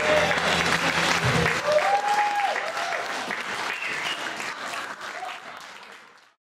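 Theatre audience applauding and cheering, with a whoop about two seconds in, as the backing music stops about a second in. The applause then fades out.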